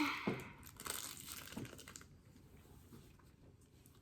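Slime-kit materials being handled at the table: a short rustle at the start, then faint crackly handling noise that dies away about two seconds in.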